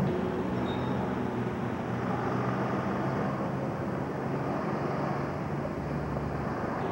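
Outdoor street ambience: steady traffic noise from cars passing on a nearby road, with a low engine hum and a brief low rumble near the end.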